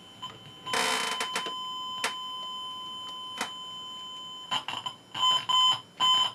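A steady test tone from a signal generator, played through the Technics SA-120 receiver into speakers. It comes in with a brief crackle, holds steady, then from about four and a half seconds in cuts in and out repeatedly as the front-panel speaker switch is worked. The dropouts are the dirty main/remote speaker switch contacts, which the repairer concludes are the whole fault.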